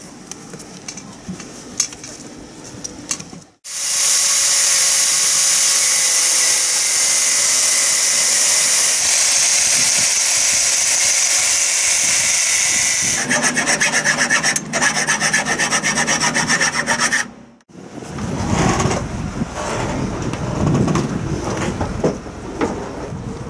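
Sawing and filing to make the life-raft mounting frame fit. A long stretch of steady cutting noise starts suddenly about four seconds in, then gives way to quick back-and-forth strokes, several a second, before breaking off.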